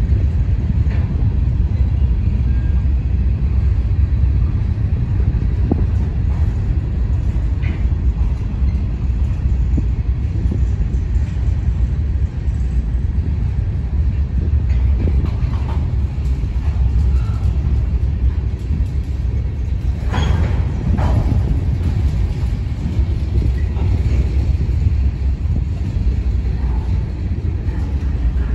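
Covered hopper cars of a freight train rolling past: a steady, loud low rumble of steel wheels on rail, with a few brief sharper noises, two of them close together about 20 seconds in.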